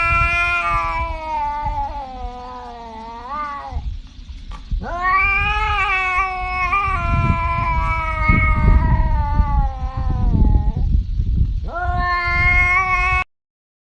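Domestic cat yowling in three long, drawn-out calls, the middle one about six seconds long, over a low rumbling noise. The sound cuts off abruptly near the end.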